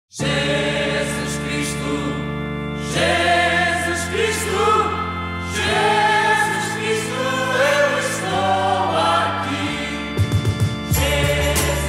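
A group of voices singing a slow hymn over held low chords that change every few seconds, with a short run of low thumps near the end.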